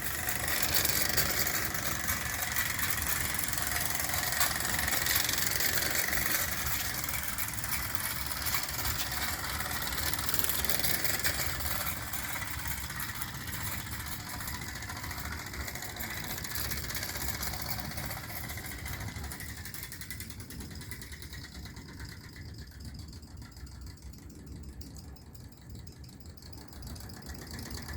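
Mamod TE1-A toy live-steam traction engine running on 3D-printed flexible tires: a steady, rapid mechanical chuffing and rattle over a high steam hiss. It grows gradually quieter over the last third.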